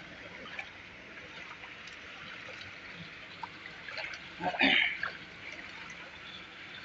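Water pouring and splashing into a swimming pool from slide outlets, a steady hiss of falling water. About four and a half seconds in there is a brief louder burst over it.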